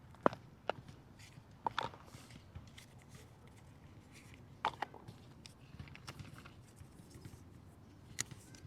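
Unboxing handling of an AirPods Pro 3 box and its packaging: scattered sharp clicks and taps, some in quick pairs, over a quiet background.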